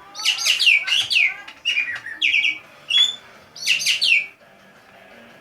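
Javan green magpie (ekek geling) calling: about six loud bursts of quick, sharply falling high notes over four seconds, then it stops.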